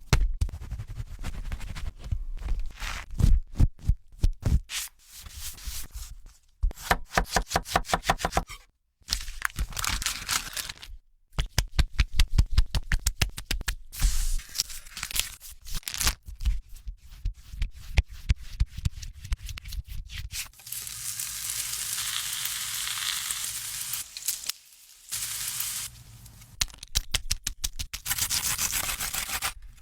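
Food being prepared in a series of short cut-together clips: quick runs of taps and knocks, scraping and rubbing, then a long stretch of steady hiss in the last third.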